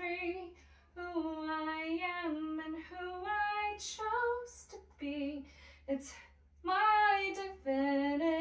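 A woman singing unaccompanied, with long held and gliding notes broken by short breaths, over a steady low hum.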